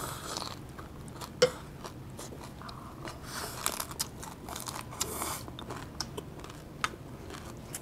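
Close-up crunchy chewing of a big mouthful of raw vegetables wrapped in a leaf, with irregular crisp crunches and wet mouth clicks.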